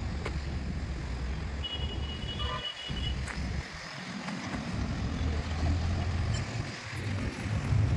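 Road traffic going by, a steady low rumble that swells in the second half, with a brief high-pitched tone about two seconds in.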